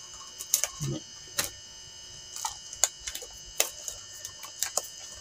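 Small scissors snipping at the plastic seal of a smartphone box, then fingers working the seal loose: an irregular scattering of short sharp clicks and crinkles, about a dozen in all.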